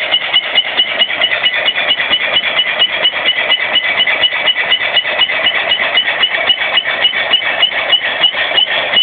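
Small restored Mumford steam engine, 2.5 in bore by 2 in stroke, running on compressed air: a rapid, even beat of exhaust puffs and knocks over a steady high hiss of air.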